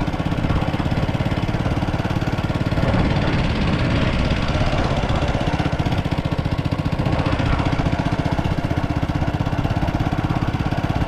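Small motorcycle engine running steadily under way, with a fast, even putter of firing pulses.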